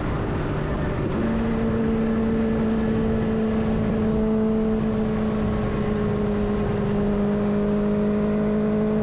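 Benelli TNT600i's inline-four engine running at a steady cruise: from about a second in, its note holds one pitch and creeps slightly higher, over a heavy low rush of wind noise.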